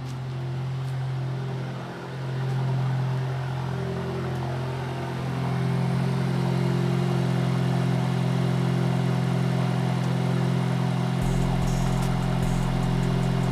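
A car engine running steadily, a constant low hum that swells slightly a few seconds in, likely the Volkswagen MK8 GTI's engine.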